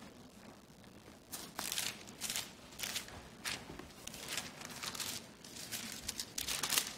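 Thin Bible pages being leafed through on a lectern: a string of quick papery rustles and flips that starts about a second in, close to the lectern microphone.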